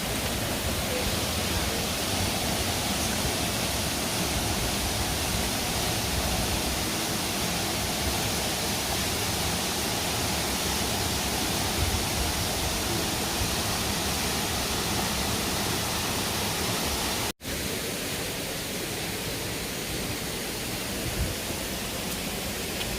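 Horsetail Falls' falling water, a steady rush, broken once by a brief dropout about three-quarters of the way through.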